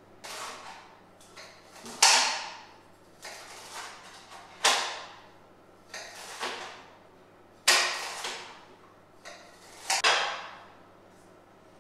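Kitchen knife scraping and cutting on a glass chopping board: a series of sharp scrapes, each fading over about half a second, the loudest four coming two to three seconds apart, as chopped food and bean sprouts are pushed off the board into glass bowls.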